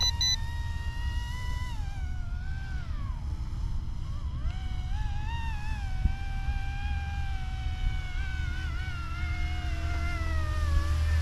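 Distant YUXIANG F09-S RC scale helicopter in flight: a high electric rotor and motor whine that dips in pitch about two seconds in, climbs back about four and a half seconds in, then slowly falls. Wind rumbles steadily on the microphone and strengthens near the end.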